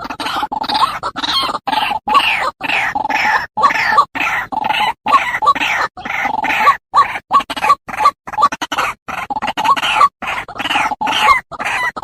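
White-breasted waterhens calling: a continuous run of loud, repeated croaking notes, broken every half second or so by brief sharp gaps.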